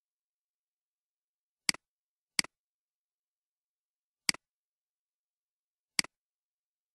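Four computer mouse clicks, each a quick press-and-release pair, the first two close together and the others spaced out, with silence between.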